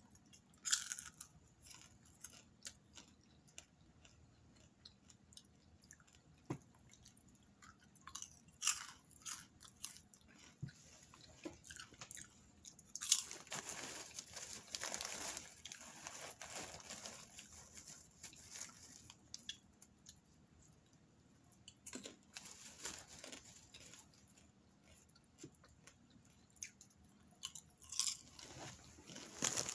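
A person chewing and crunching popcorn close to the microphone, with sharp crackly bites. About halfway through, a longer stretch of rustling as a hand goes into the big plastic popcorn bag, and more crinkling near the end.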